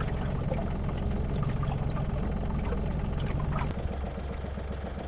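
Fishing boat's motor running steadily at trolling speed, with water splashing and gurgling along the hull. The hum changes slightly about three and a half seconds in.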